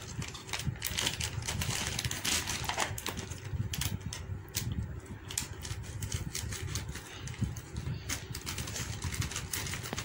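Plastic food packaging being opened by hand: a stiff plastic tub and the plastic bag inside it, giving irregular crackles and clicks.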